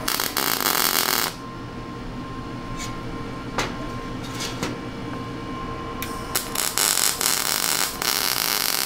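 MIG welding arc crackling and hissing in bursts as steel is tacked and welded: a weld of about a second at the start, a few short blips around the middle, then a longer run of about three seconds near the end.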